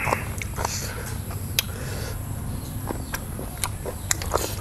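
A person eating boiled sea snails close to the microphone: irregular sharp clicks and smacks of chewing, a few each second, over a steady low background hum.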